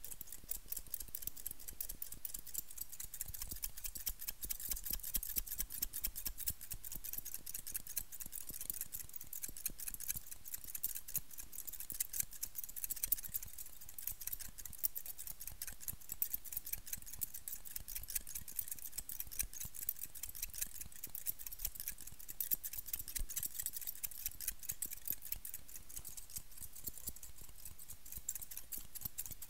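Two pairs of steel barber scissors snipped rapidly and without pause, very close to a microphone: a continuous stream of crisp, high metallic snips.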